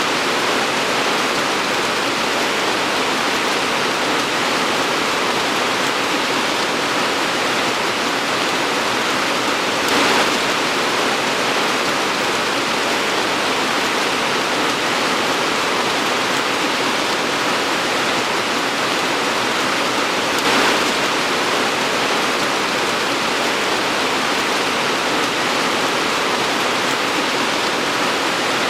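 Torrential rain pouring steadily in an even hiss, with a brief louder splash or gust about ten seconds in and again about twenty seconds in.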